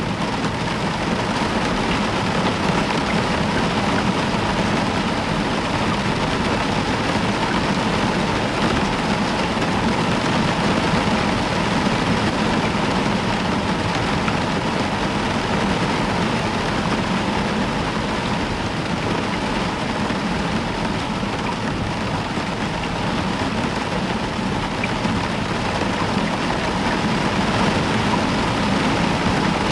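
Heavy rain falling steadily on a roof, an even, unbroken wash of noise.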